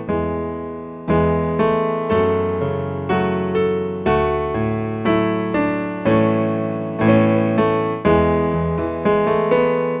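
Casio Privia PX-160 digital piano played with both hands in a piano tone: chords and notes struck about every half second to a second, each ringing and fading before the next.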